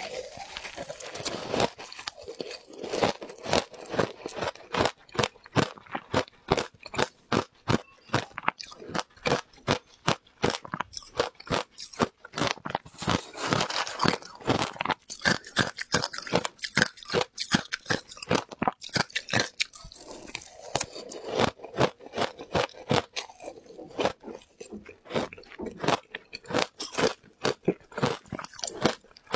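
Shaved ice topped with passion fruit pulp being crunched and chewed close to a clip-on microphone: quick, uneven crisp crunches, several a second.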